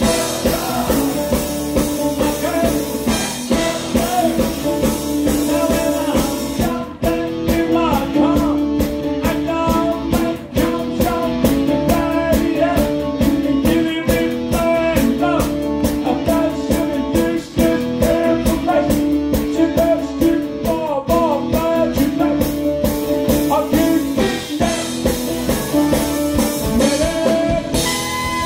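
Live band with a drum kit playing an upbeat rock-and-roll number, amplified over a PA, with a man singing into a microphone over it. The drums' steady beat becomes prominent about seven seconds in.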